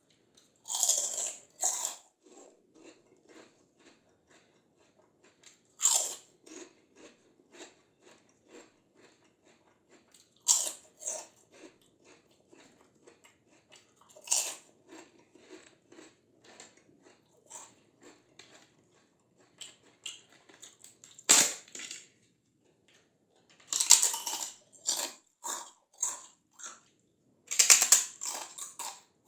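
Close-up eating of crispy fried papad snacks: loud crunching bites, about seven of them spread through the stretch, each followed by steady crunchy chewing.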